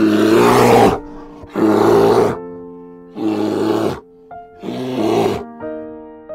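Black bear calling: four low, drawn-out growls about a second and a half apart, over background music with held notes.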